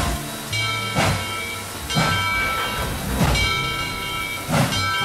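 Background music: sustained chords that change about once a second, each change marked by a sharp hit.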